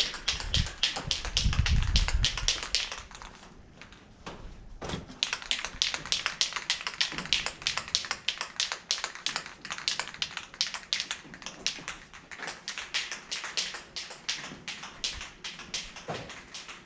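A few seconds of low thumping and rumble, then a long run of quick, sharp taps, about five a second.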